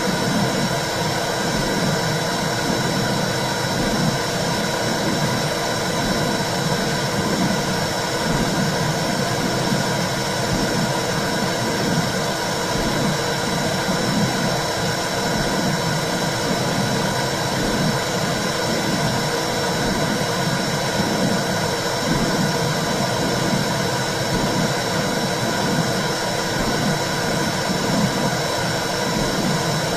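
Womb sound for soothing a baby: a steady whooshing rumble with a slow, regular pulse like a heartbeat, and a thin steady high tone over it.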